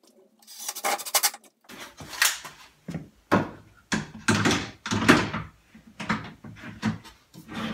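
Dresser drawers on bottom-mount drawer slides being pulled out and pushed shut again and again, a series of short sliding runs, each ending in a knock as a drawer closes.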